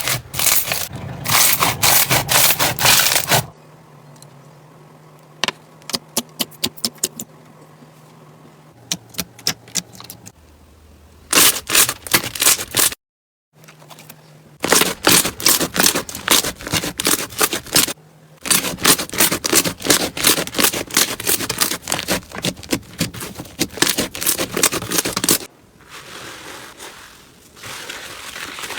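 Slime being squeezed and pressed by hand, giving dense runs of crackling, clicking pops. Several clips are cut together, with a quieter stretch of sparse clicks in the first half and a brief break near the middle between the louder runs.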